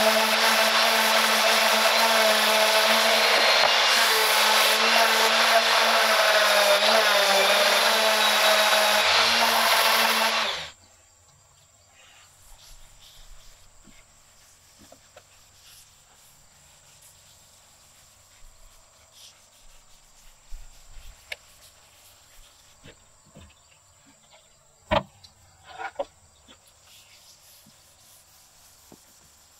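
Random orbital sander running steadily on a coffeetree and walnut cutting board, with a high motor whine, cutting off suddenly about ten seconds in. After that, a faint soft rubbing of a hand wiping oil finish into the wood, and two sharp knocks near the end.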